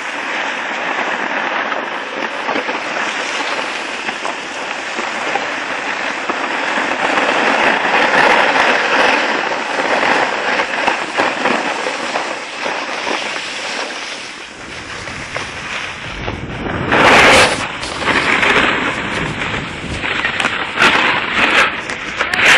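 Skis sliding and scraping over packed snow: a steady, crackling hiss. Wind on the microphone adds a rumble in the second half, with a loud rush about three quarters of the way through.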